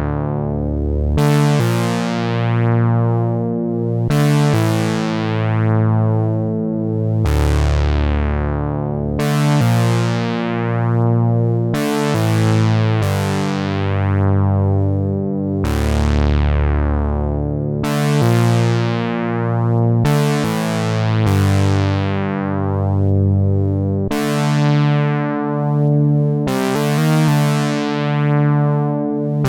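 Arturia SYNTHI V software synthesizer, an emulation of the EMS Synthi AKS, playing a demo of sustained chords. A new chord comes about every two seconds, each starting bright and darkening as the filter closes, over a slow pulsing in loudness.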